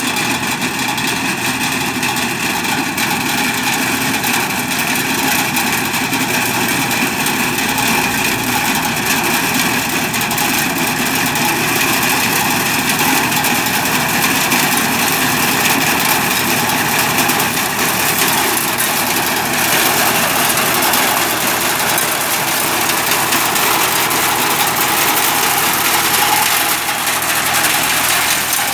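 Small self-propelled crop reaper running steadily as it cuts through standing crop, its engine and cutting mechanism making one continuous mechanical sound.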